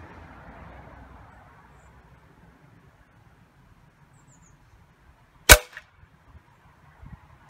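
A single sharp crack about five and a half seconds in: one shot from a Steyr Challenge E match air rifle, the pellet punching through the paper target into its pellet trap, with a brief ring after it. A few faint knocks follow near the end.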